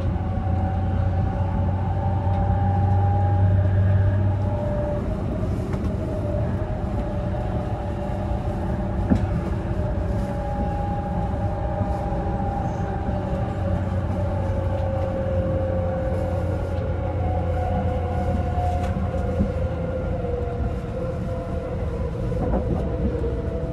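Inside a moving E353 series electric limited express train: the electric motors whine steadily over the low rumble of the car, the pitch drifting slowly and sinking a little near the end, with a few isolated clicks.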